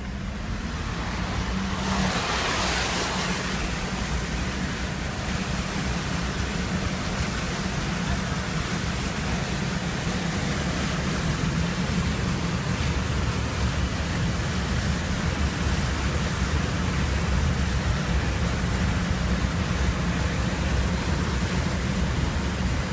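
Steady rush of floodwater churned up by a vehicle's tyres as it drives through a flooded road, heard from inside the cabin over a low engine rumble, with a louder swell of water noise about two seconds in.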